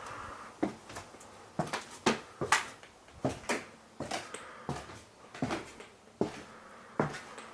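Footsteps walking across a floor in a small room, about two steps a second at an uneven pace.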